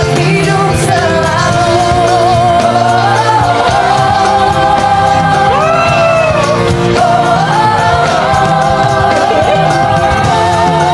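A pop song performance with several female singers holding long notes with vibrato in harmony over band accompaniment, one voice sliding up and down in a run about halfway through.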